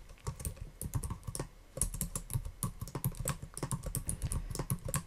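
Typing on a computer keyboard: a quick, uneven run of keystrokes with a brief pause about a second and a half in.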